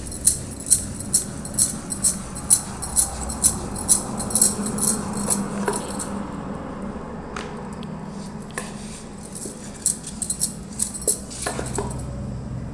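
Wooden rolling pin rolling out roti dough on a wooden board, the bangles on the roller's wrist clinking in quick, regular time with the strokes. About six seconds in the rolling stops, and only a few scattered bangle clinks follow as the dough is smoothed and turned by hand.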